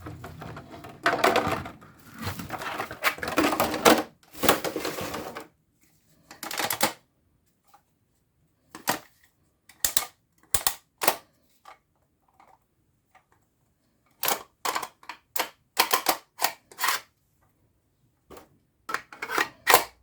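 Packaging rustling and crinkling for a few seconds, then a scattered series of sharp clicks and knocks from hard plastic parts being handled while unboxing a cordless LED flashlight.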